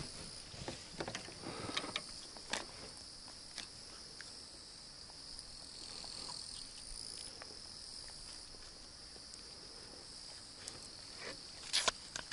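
A steady high-pitched insect chorus, with scattered soft clicks and rustles of hands unhooking a small zander in a mesh landing net, and a few sharper clicks near the end.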